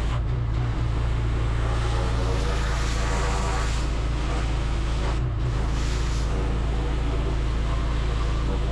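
Pressure washer spraying the underside of hay rake rotors: a steady hiss of the water jet over a constant engine hum, with a brief break in the spray about five seconds in.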